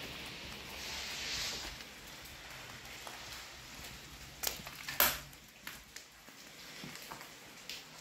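Footsteps scuffing and crunching over a floor littered with debris, with two sharp clicks about four and a half and five seconds in, the second the loudest, and a few lighter ticks after.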